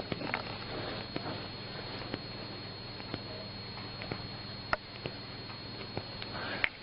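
Rustling and scattered small clicks, with two sharp cracks, one about two-thirds of the way through and one near the end: joints popping during a chiropractic back adjustment. A steady electrical hum and a high whine run underneath.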